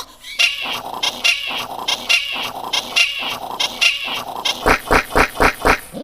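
Chopped, edited remix of a distorted sound sample, repeated in a rhythm about twice a second. Near the end it breaks into a fast stutter of about six hits a second, then cuts off suddenly.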